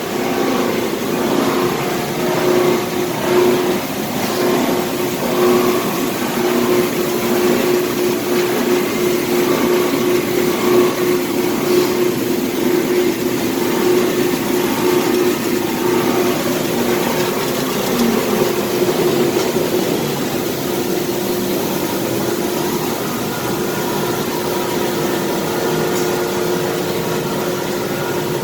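Industrial wire chopping system with turbo mill running, a loud steady machine hum with a constant tone over a dense rushing noise. It is rougher and more uneven for the first twenty seconds or so, then settles to an evener hum.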